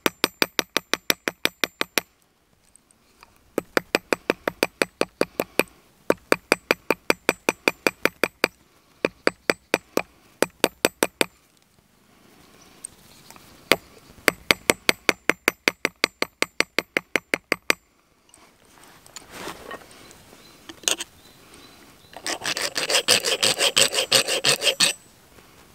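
A hammer tapping copper in quick runs of a couple of seconds each, about six light blows a second, each with a bright metallic ring. Near the end, a few seconds of rasping, like filing or rubbing the metal.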